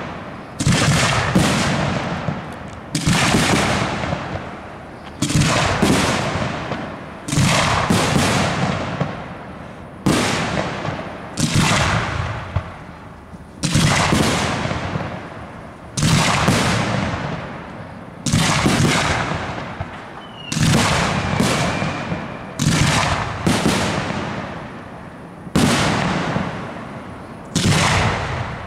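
Aerial fireworks shells bursting in quick succession, about one every one to two seconds, each a sharp bang that trails off over a second or so.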